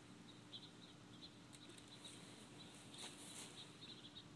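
Near silence: room tone with a faint steady hum and a few faint small ticks and rustles.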